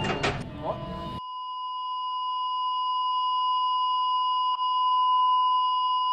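Soundtrack music breaks off about a second in, leaving a single steady, high electronic tone that holds and slowly grows louder.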